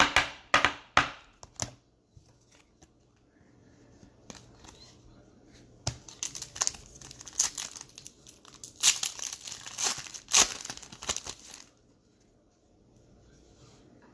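Trading card pack wrappers being torn open and crinkled by hand: a few quick rips in the first couple of seconds, then a longer stretch of crinkling and tearing from about six to twelve seconds in.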